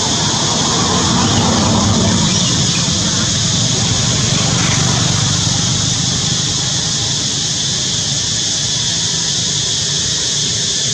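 Steady outdoor background noise: an even rumble with a hiss on top, unchanging throughout, with no distinct call or impact standing out.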